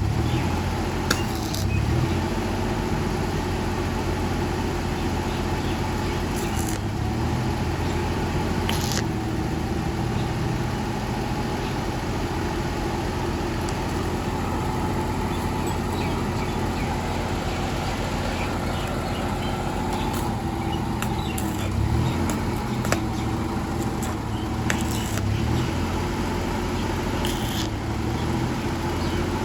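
Car engine idling steadily at an even speed, with a few short metallic clicks and knocks scattered over it.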